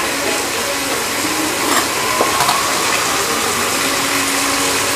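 Oil sizzling steadily in an iron kadai as fried chicken skin is scooped out, with a few short scrapes and clicks of a metal spoon against the pan about two seconds in.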